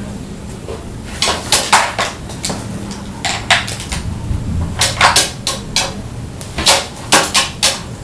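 A crow's beak pecking and knocking at a plastic slow-feeder puzzle on a glass tabletop. It makes irregular sharp clicks and clacks, often two or three close together.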